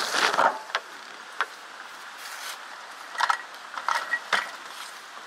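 RV awning fabric and roller tube being handled: a rustling clatter at first, then scattered light metallic clicks and rattles from the spring-loaded roller's end fittings.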